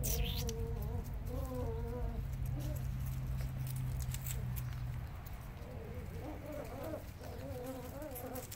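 Cavalier King Charles spaniel puppies and an adult spaniel play-scuffling on a patio strewn with dry leaves: light pattering paws and rustling leaves, with intermittent voice-like sounds. A steady low hum stops about five seconds in.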